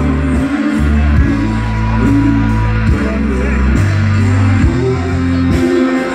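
Live band playing amplified pop-rock through a PA, with singing over a heavy electric bass line whose low notes change about every second.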